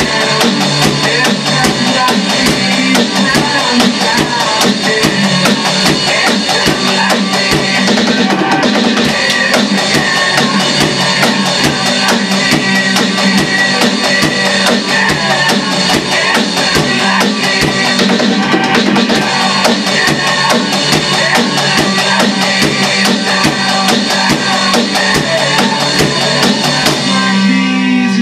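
Rock song with guitar and a busy drum part, played along on an electronic drum kit with dense, steady strokes. About 27 seconds in the drumming stops and a held chord rings on.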